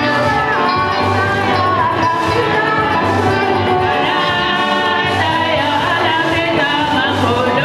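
Congregation singing a hymn with instrumental accompaniment, several voices together over a steady low beat.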